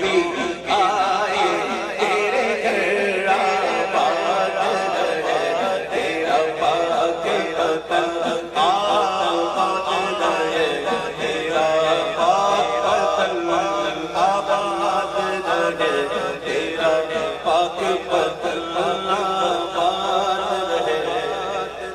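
Devotional Urdu kalam music with a continuous wavering melody line and no lyrics.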